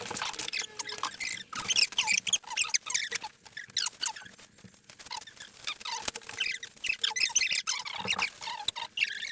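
Small hard objects being handled and rummaged through, with rapid irregular clicks, rattles and scrapes throughout.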